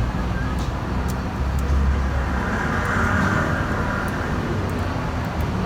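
Hyundai Accent's engine running with a steady low rumble, after a top overhaul and a replacement intake camshaft.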